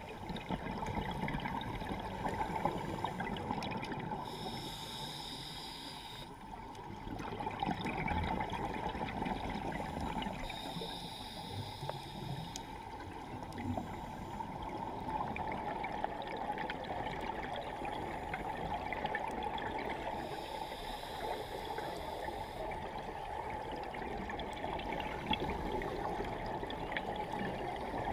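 Underwater sound recorded by a scuba diver's camera: a steady gurgling, crackling wash of water and bubbles. A higher hiss comes and goes three times, several seconds apart.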